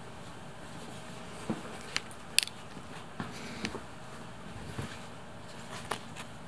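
Scattered light clicks and taps, about seven of them, the sharpest about two and a half seconds in, as a cat plays at a feather wand toy from a swivel chair, over a faint steady room hum.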